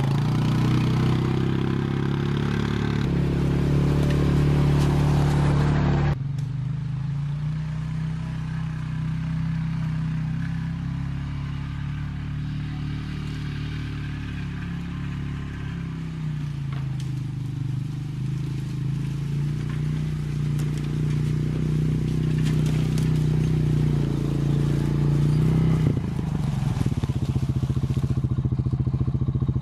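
Honda Rancher ATV's single-cylinder four-stroke engine running steadily as it is ridden, dropping abruptly in level about six seconds in. Near the end it settles to an even idle.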